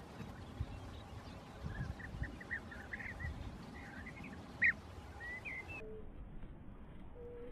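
European bee-eaters calling: a string of short chirping calls, loudest about four and a half seconds in. Near the end the sound turns duller and a brief low steady note sounds twice.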